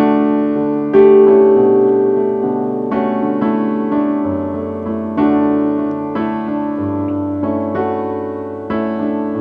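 Slow piano music: sustained chords struck about once a second, ringing on between strikes.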